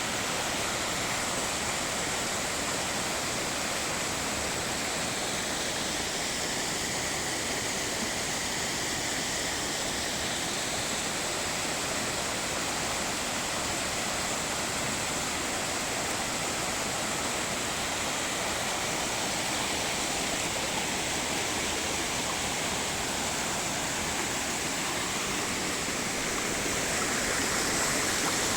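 Waterfall on small mountain streams: water rushing steadily over rock, slightly louder near the end.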